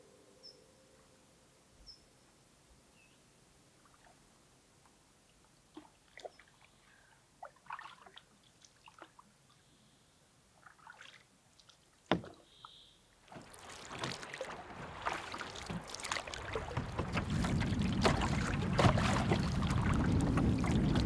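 Canoe paddle strokes in calm lake water: sparse, faint splashes and drips at first. About two-thirds of the way in it becomes a close, steady rush of water sloshing along the moving canoe's hull, with paddle splashes.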